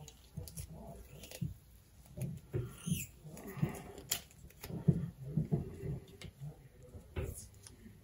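Close handling noise of a small wire-wound plastic conduit coil being wrapped in electrical tape: irregular clicks, taps, rubs and scratchy tape sounds from the fingers working it.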